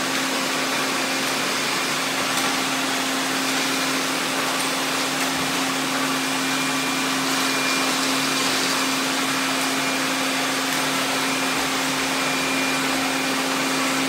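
A group of robot vacuums, including iRobot Roombas, running at once: a steady whirring hiss with a constant low hum underneath.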